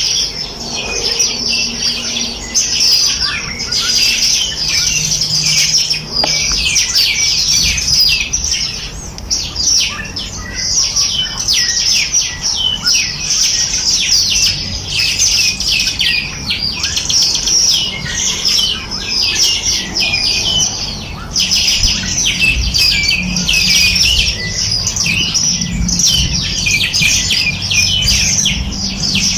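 A chorus of many small birds chirping and twittering without pause, a dense stream of short high chirps overlapping one another.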